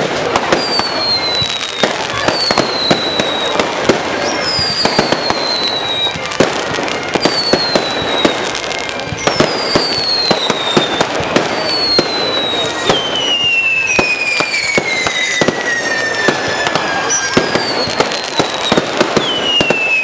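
Fireworks display: a rapid run of sharp bangs and crackles from bursting aerial shells, with whistling fireworks giving short falling whistles about every second. Past the middle comes one longer falling whistle lasting about four seconds.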